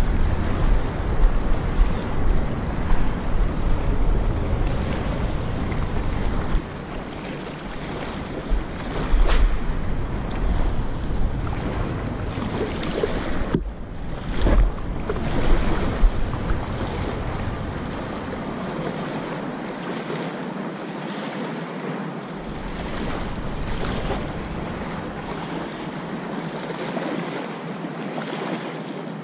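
Wind buffeting the microphone in gusts, a low rumble that comes and goes, over the steady wash of small waves lapping at the shoreline.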